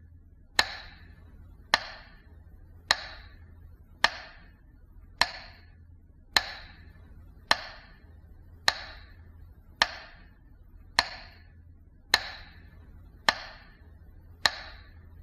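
A sharp tick or knock repeated at a steady, even pace, about once every 1.2 seconds, each with a short ringing tail.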